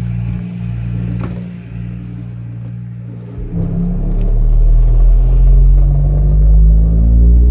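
Deep bass from a small Polk 5.1 home theatre system's subwoofer playing a bass test track, swelling into a much louder, very low rumble about three and a half seconds in.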